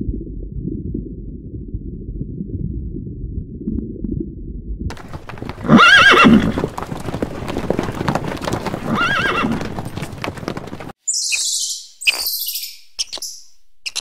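A muffled low rumble for the first five seconds, then a herd of horses galloping, hoofbeats under two loud whinnies, the first the loudest. Near the end, a few short high-pitched chirps.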